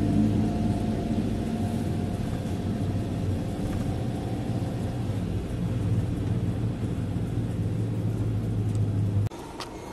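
Steady low drone of a running motor vehicle engine with road rumble, cutting off suddenly near the end.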